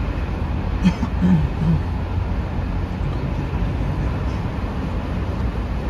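Steady road and wind noise of a car driving at speed, heard from inside the car. About a second in, a few short low sounds break in briefly.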